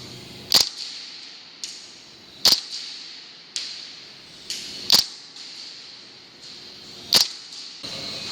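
Airsoft gun firing single shots: four sharp cracks about two seconds apart, with fainter clicks in between.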